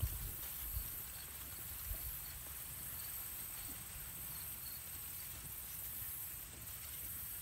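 Steady high-pitched chorus of insects in the grass, with a low rumble underneath and two faint soft knocks in the first two seconds.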